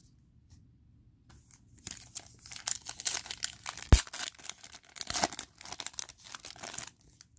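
Foil wrapper of a 2020 Elite football card pack being torn open and crinkled, starting about two seconds in, with one sharp snap near the middle as the foil rips.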